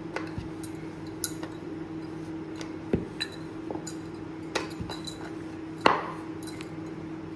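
A rolling pin working chapati dough on a rolling board: scattered light knocks and clicks, the loudest about six seconds in, over a steady low hum.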